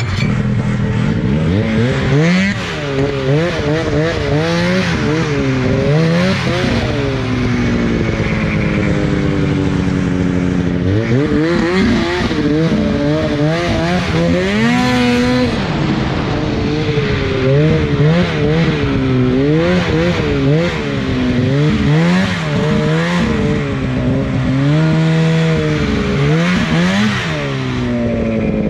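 Ski-Doo Summit X 800 snowmobile engine under way, revving up and falling back again and again as the throttle is worked, with a few longer easing-off glides where the pitch sinks slowly. A steady rush of track and snow noise runs beneath it.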